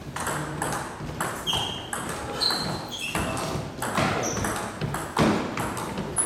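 Table tennis ball being hit back and forth in a rally: a steady run of sharp clicks and pings off the paddles and table, about two to three a second.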